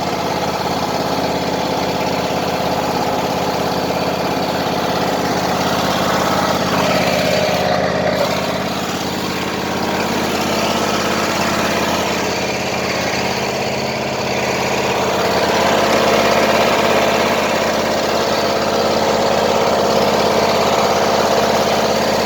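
Craftsman lawn tractor engine running steadily just after starting, its engine still wet from pressure washing.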